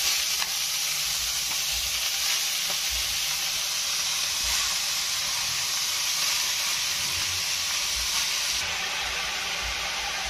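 Chopped bathua greens sizzling in hot mustard oil in a kadhai, a steady frying hiss, with faint irregular low knocks as the leaves are stirred.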